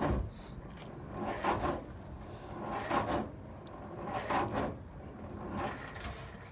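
Electric starter turning a brass-era speedster's engine over slowly, a grinding surge about every second and a half, without the engine catching.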